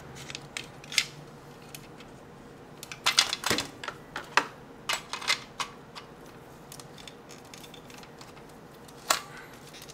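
Hand tools clinking and knocking on a workbench while a flat screwdriver is worked into the seam of a plastic battery-charger case. The sound is scattered sharp clicks, busiest between about three and five and a half seconds in, with one more near the end.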